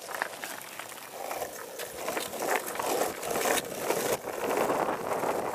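Longboard wheels rolling on asphalt, a steady rumbling hiss that grows louder as the boards pick up speed downhill, with a few small clacks from the boards.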